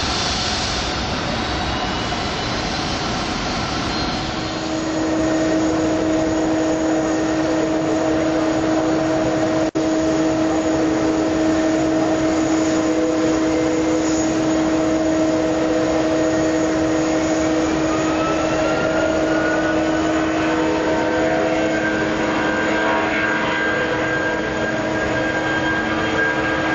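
Boeing 757 jet engines (Rolls-Royce RB211 turbofans) running with a steady whine over a rushing roar as the airliner taxis onto the runway. In the second half, higher tones rise in pitch as the engines spool up for takeoff.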